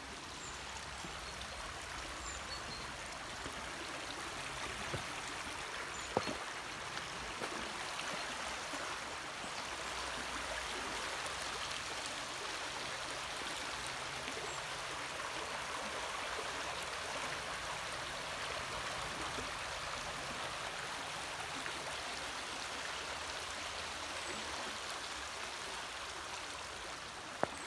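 River water flowing steadily under and around a flood-control gate bridge, a continuous rushing sound that grows a little louder mid-way, with a few faint clicks.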